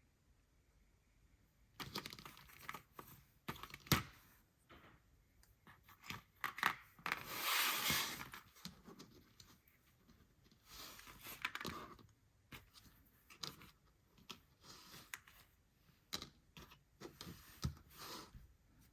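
Toy packaging being handled and torn open by hand: crinkling and rustling with scattered sharp clicks and taps, and a longer tearing sound about seven to eight and a half seconds in.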